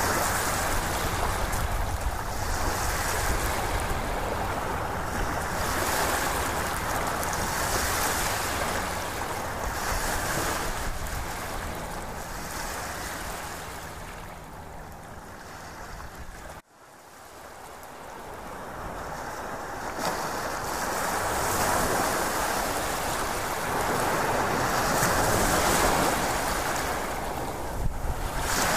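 Ocean surf: waves washing in and drawing back in swells every couple of seconds. The sound fades down, cuts out for an instant about 17 seconds in, then builds up again.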